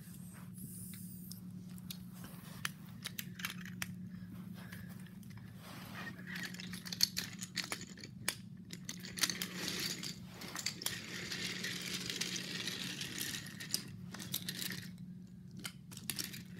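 Scattered small clicks and clinks of wooden toy trains and track pieces being handled, with rustling that thickens in the middle, over a steady low hum.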